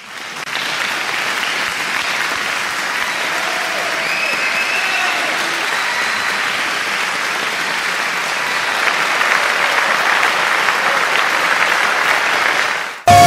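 Crowd applauding: dense, steady clapping that starts suddenly and cuts off abruptly near the end.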